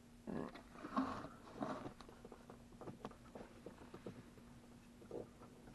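Crinkling, rustling and small clicks of hands handling wiring and a test probe, busiest in the first two seconds, then scattered clicks as the hand reaches in under the truck dashboard. A faint steady hum runs underneath.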